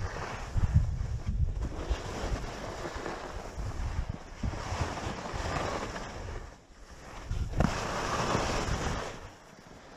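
Wind rumbling on the microphone while skis hiss and scrape over packed snow. The scraping swells with the turns, about halfway through and again near the end.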